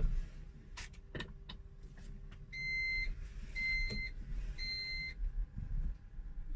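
Three even electronic beeps, each about half a second long and about a second apart, from the M2 electric car's reverse warning with reverse gear engaged. A few sharp clicks come before them.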